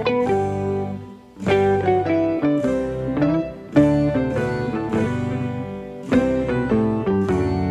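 Background music: a plucked guitar tune, note after note in short phrases.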